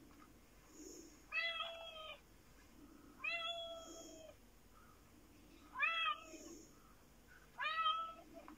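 A fluffy black cat meowing four times, each meow just under a second long, played from a video through a television's speakers.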